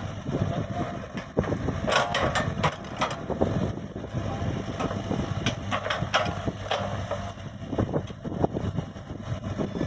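Komatsu PC75UU excavator at work, its diesel engine running under a string of irregular metallic clanks and knocks, with short squeals about two seconds in and again around six seconds.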